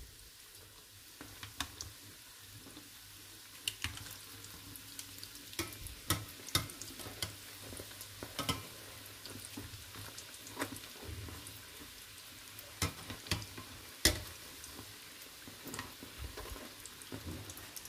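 Hot oil sizzling steadily around pieces of yogurt dough frying in a pan, with irregular sharp clicks as metal tongs knock against the pan while the pieces are turned over.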